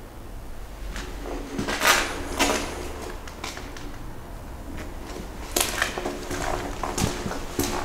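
Footsteps on the grit-strewn concrete floor of a brick-vaulted tunnel: irregular steps, a cluster about two seconds in, fewer in the middle, then more from about five and a half seconds on.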